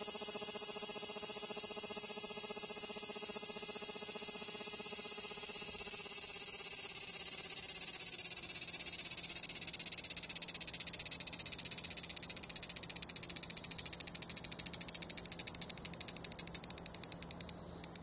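Large brown cicada (abura-zemi, Graptopsaltria nigrofuscata) singing a loud, high-pitched buzz that is distorted on the recording. It is steady at first, breaks into fast, even pulses about halfway through, then fades and stops near the end.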